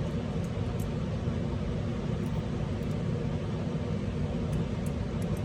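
Steady low background hum, with a few faint, light ticks scattered through it.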